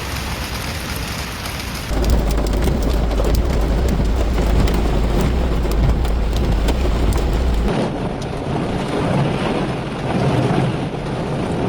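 Heavy rain pouring down in a thunderstorm, a dense steady hiss. A deep low rumble joins it about two seconds in and drops away abruptly after about six seconds.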